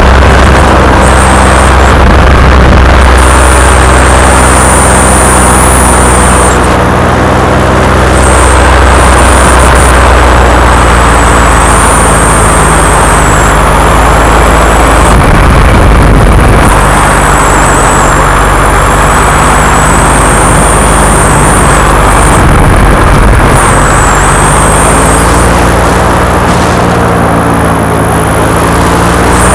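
Paramotor engine and propeller running steadily at flying power right behind the pilot, its note shifting a little now and then with the throttle, with wind rumble on the microphone.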